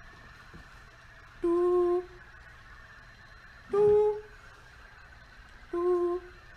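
A man humming three short, steady notes of about half a second each, the middle one a little higher. These are pitch commands to a sound-controlled robot, which pivots right on a high note and left on a low one.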